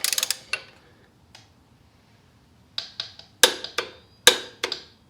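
Ratcheting torque wrench tightening a motorcycle front axle nut toward 37 foot-pounds. A quick cluster of sharp ratchet clicks at the start, then a pause, then a string of single clicks from about three seconds in.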